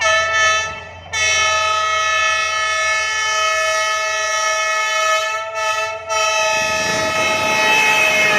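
Diesel locomotive's multi-tone air horn: a short blast, then a long held blast that dips briefly about six seconds in. The rumble of the approaching train grows underneath near the end.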